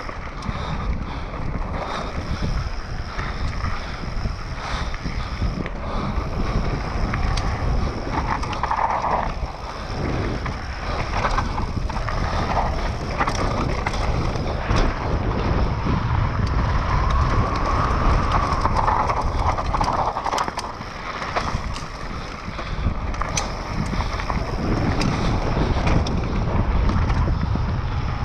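Wind rushing over the microphone, with a mountain bike's tyres and frame rattling over a rocky dirt trail at speed: a steady loud rumble broken by frequent sharp clicks and knocks.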